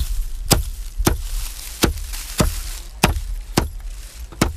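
Eight sharp, evenly spaced chopping knocks, one about every half second, over a steady hiss.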